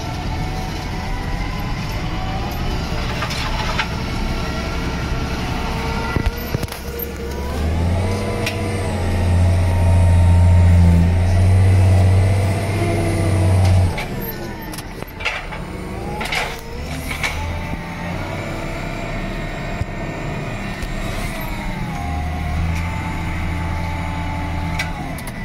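John Deere tractor's engine running as it works a front-mounted buck rake on a silage clamp, heard from inside the cab. The engine note rises and grows much louder and deeper for about six seconds from around eight seconds in, drops back, and swells again for a few seconds near the end.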